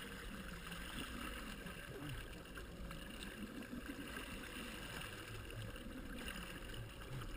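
Jet ski running under way, its engine and the rush of its churned-up wake heard as a steady wash of water and motor noise.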